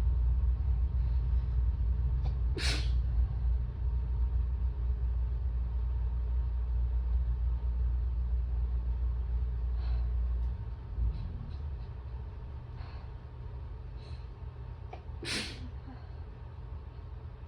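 A woman sneezing twice during an allergy attack, the two sneezes about thirteen seconds apart, with a few fainter short breathy sounds between them. A steady low rumble underneath drops away about ten seconds in.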